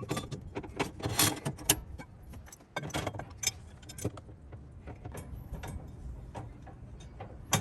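Irregular metallic clicks, clinks and taps of hand work on an RV stabilizer jack assembly, as metal parts and tools knock together.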